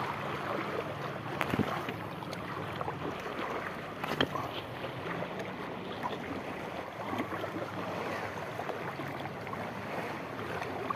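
Small sea waves lapping and splashing against shoreline rocks, with light wind on the microphone and a few faint clicks.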